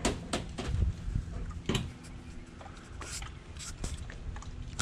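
Footsteps and camera handling on a dock: a few irregular light knocks and clicks, with a low rumble over the first two seconds.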